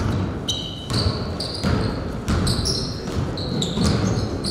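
Basketball being dribbled on a gym floor, with repeated short, high sneaker squeaks as players move. Voices murmur underneath.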